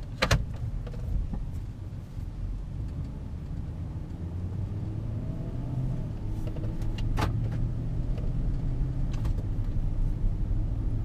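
Truck with a Ford 5.4 L Triton V8 driving: a steady low engine and road rumble that grows louder from about four seconds in as it gathers speed, running normally so far on its new timing chain set. A sharp click sounds near the start and another about seven seconds in.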